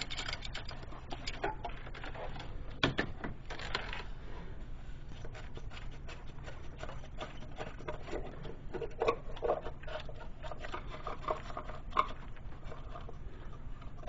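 Socket wrench on the plastic oil filter housing cap of a Saturn Ion's 2.2 engine being worked loose and the cap handled off. Irregular clicks, scrapes and rubbing, with a sharp knock about three seconds in.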